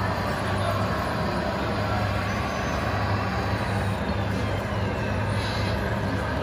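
RC scale trucks running steadily, a constant low engine-like hum such as their diesel sound modules give.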